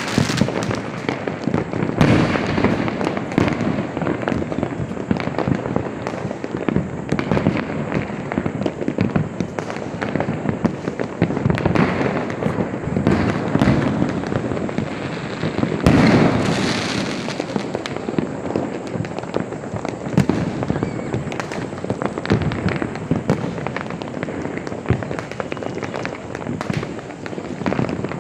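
Firecrackers and sky rockets bursting in a dense, continuous crackle of overlapping pops and bangs, with heavier bangs about 2 seconds in and again about 16 seconds in.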